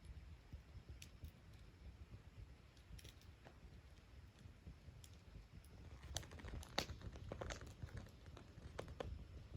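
Wood fire crackling faintly: scattered small sharp pops, sparse at first and coming more often in the last few seconds.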